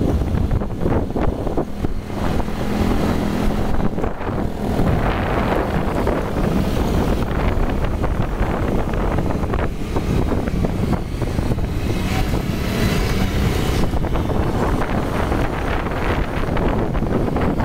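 Motorcycle engine running while riding, with wind rushing over the microphone.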